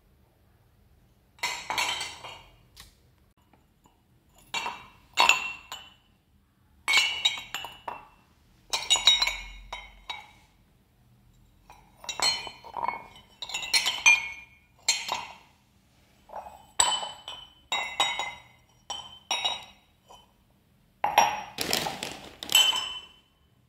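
Ceramic mugs clinking and knocking against one another and the tiled floor as they are handled and set down: short, ringing clinks in small clusters with quiet gaps between.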